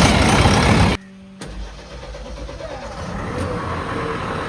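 Diesel engine of a JCB 3DX Plus backhoe loader running. A loud rushing noise covers it until it cuts off abruptly about a second in, after which a steady engine hum continues.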